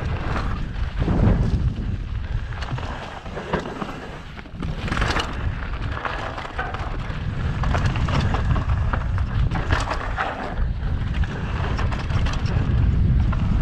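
Wind noise on a body-mounted camera's microphone while a mountain bike descends a dirt trail at speed, with tyre noise on the dirt and the bike knocking over bumps.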